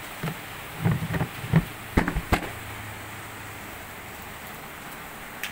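A quick run of knocks and bumps, the loudest two sharp knocks close together about two seconds in.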